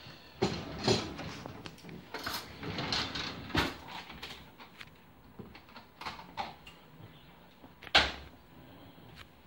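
Clicks and knocks from handling a plastic margarine tub and a metal spoon at the stove: the lid coming off, then scooping and tapping the spoon on a frying pan. The sharpest knock comes about eight seconds in.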